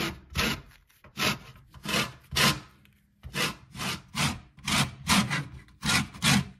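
Lemon rubbed against the teeth of a metal box grater to take off its zest: a run of scraping strokes, about two a second, with a short pause about three seconds in.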